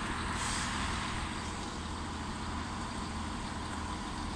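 ScotRail Class 170 diesel multiple unit's engines running with a steady low rumble, with a short hiss about half a second in.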